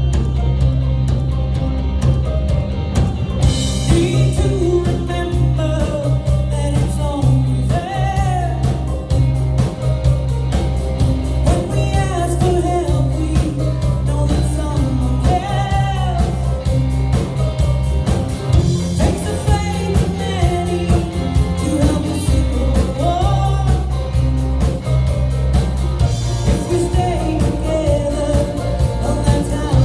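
A woman singing a country song over full instrumental backing with a steady beat and heavy bass. The voice comes in about three and a half seconds in, after a short instrumental passage.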